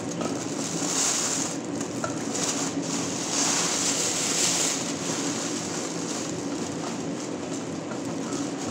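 Clear plastic bag rustling and crinkling as cooked seafood is packed into it by hand, in surges, over a steady low hum.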